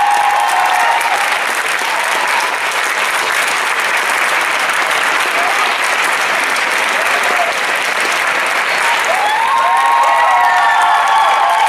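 Sustained applause from a large crowd. Voices rise over the clapping right at the start and again near the end.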